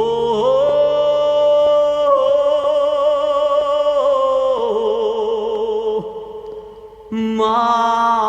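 Music with long held notes that waver with vibrato; it fades about six seconds in, and a new passage starts abruptly about a second later.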